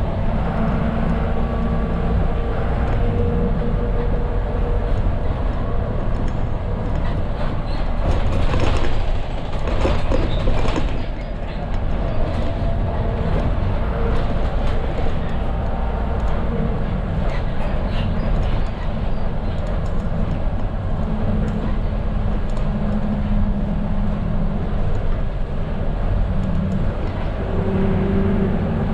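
Cabin noise of a Mercedes-Benz OF 917 medium bus under way at about 40–50 km/h: steady diesel engine rumble and road noise, with humming tones that come and go. A burst of rattles and knocks from the body comes about a third of the way through.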